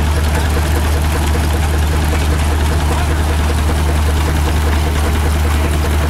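Engine running steadily: a deep, even drone with a fast, regular ticking over it.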